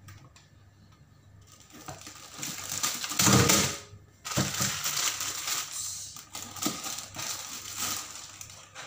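Plastic packaging rustling and crinkling as it is handled, loudest in a burst about three seconds in, then going on in irregular bursts.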